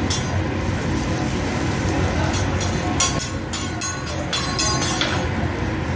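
Metal spatula clacking and scraping on a steel teppanyaki griddle, a quick run of strikes from about two to five seconds in, over a steady low hum.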